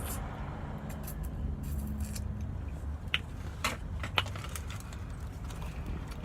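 Steady low rumble of a vehicle cabin, with a few short sharp clicks about three to four seconds in.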